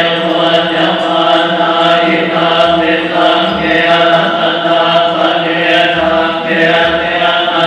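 Group of Thai Buddhist monks chanting Pali in unison, the voices held on nearly one steady pitch.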